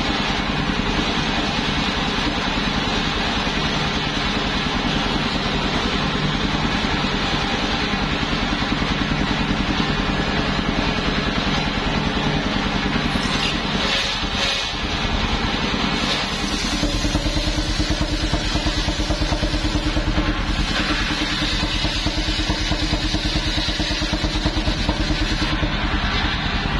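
Engine of a homemade vehicle-mounted circular sawmill running steadily. Its note shifts about seventeen seconds in.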